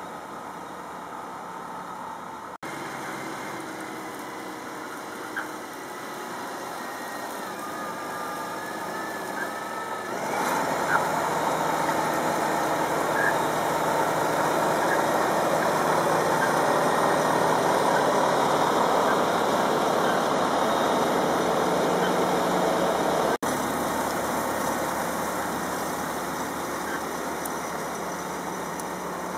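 Fendt 936 Vario tractor's six-cylinder diesel engine running under load while it pulls a slurry tanker. It gets much louder from about ten seconds in, then falls back sharply shortly after twenty seconds.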